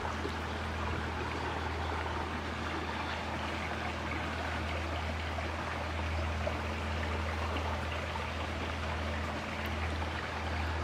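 Steady rush of running water from a creek, with a low steady hum underneath.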